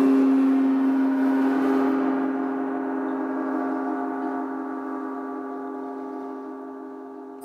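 A Paiste gong ringing out after being struck and slowly fading away, with a dense set of sustained tones centred on a low hum. The bright high shimmer dies away after about two seconds, and a low slow pulsing wobble remains.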